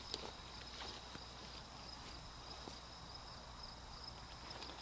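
Crickets in the surrounding field keep up a steady high trill. A single sharp click sounds just after the start.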